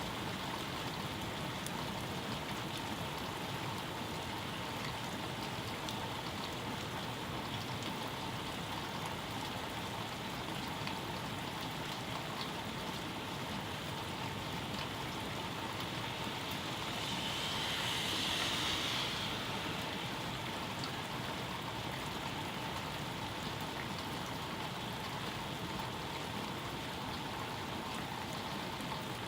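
Steady rain falling, an even hiss throughout, with a brief louder swell of higher hiss about two-thirds of the way through.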